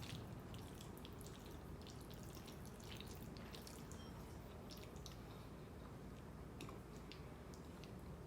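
Faint, wet chewing and mouth clicks from someone eating creamy fettuccine alfredo, as scattered small clicks over a steady low hum.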